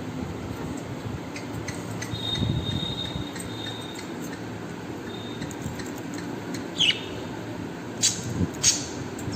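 A pet bird giving a few short, sharp, falling chirps, bunched in the last few seconds, with a faint thin whistle-like note earlier, over a low steady background noise.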